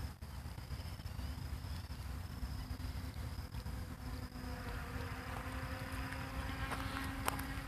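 Wind rumbling on a phone microphone under a steady, high-pitched insect trill. A low steady drone joins about a second in, and there is a single click near the end.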